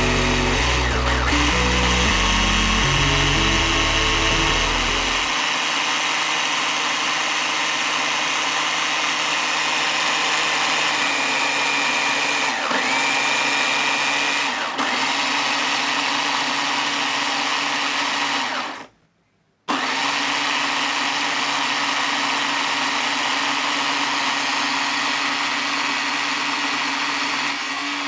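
Steady electric whirring from a toy 1:14-scale Mustang RC car running its smoke-exhaust unit, vapour puffing from the lit tailpipes. A low, uneven rumble lies under it for the first five seconds, and the sound cuts out for about a second around two-thirds of the way through.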